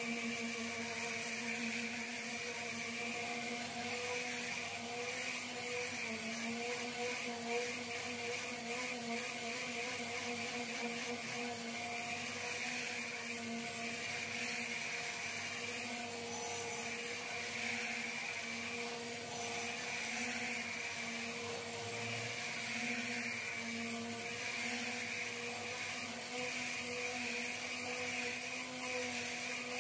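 Random orbital sander running with a constant whine, its pad rubbing over the primed surface of a car fender.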